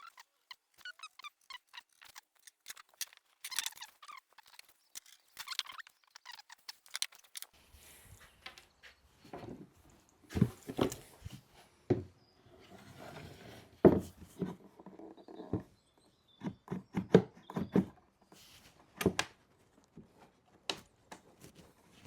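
Workshop handling noise: for several seconds, quick light ticks and scratches of marking out on plywood. Then a run of irregular knocks and thumps as wooden pieces are moved and set down, the loudest about ten, fourteen and nineteen seconds in.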